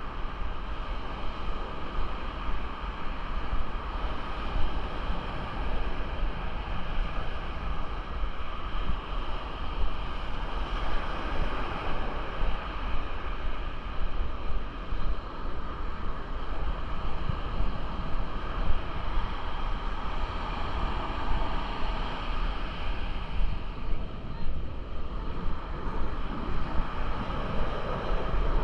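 Ocean surf washing ashore, a steady rushing noise, with wind buffeting the microphone in a gusty low rumble.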